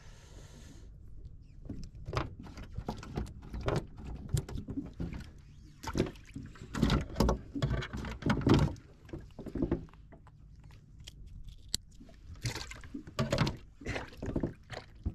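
Irregular knocks, taps and clatter of gear being handled on a small fishing boat's deck, loudest in two busy spells midway and near the end.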